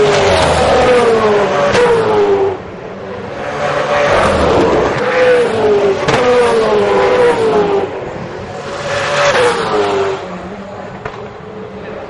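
V8 Supercars' 5.0-litre V8 engines, loud, as race cars go past one after another in three waves. Each engine note sweeps down in a run of falling steps.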